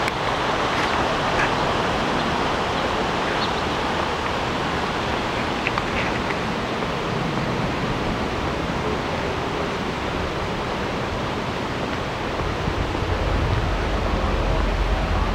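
Steady rushing of flowing river water, with a few faint high chirps. A low rumble comes in near the end.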